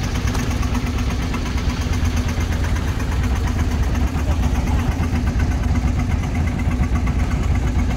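A fishing boat's inboard engine idling steadily with a low, even hum and a rapid, regular firing beat.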